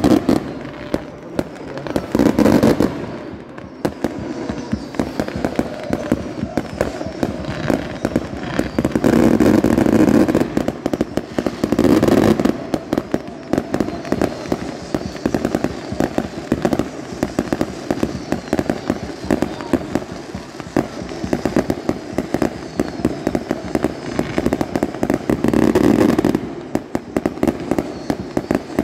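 A fireworks barrage going off in rapid succession: dense crackling and popping, many bangs a second, with several louder swells.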